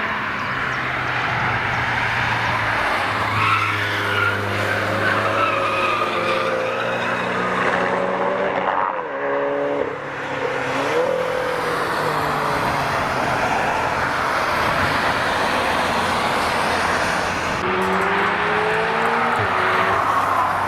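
Car engines revving hard, their pitch climbing and dropping again and again as gears change, over a steady hiss of tyres on a wet track.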